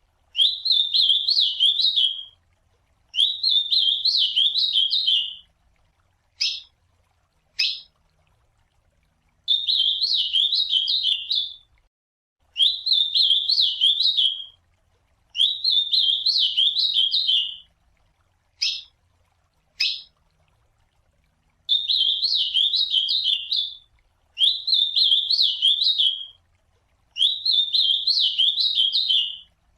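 Ultramarine grosbeak (azulão) singing its classic song: a run of eight rapid, warbling whistled phrases of about two seconds each, with short pauses between them. In two of the longer pauses it gives a pair of short, sharp call notes.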